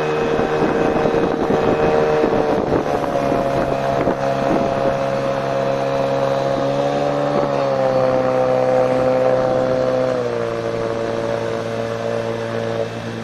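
Yamaha 40 hp outboard driving a water jet, running under way with wind on the microphone. Its engine note drops a little about two and a half seconds in, rises briefly around seven seconds, and drops again around ten seconds.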